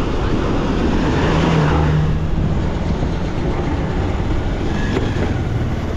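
Motorcycle being ridden: its engine running with a steady drone under road noise.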